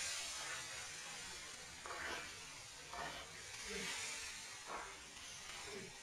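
Water at a rolling boil in a large aluminium wok, hissing and bubbling around a water-filled rubber balloon, with a few short louder bubbling bursts about once a second in the second half.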